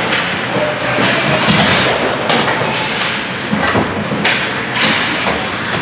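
Repeated knocks and thuds of play during a team game, over a steady noisy background.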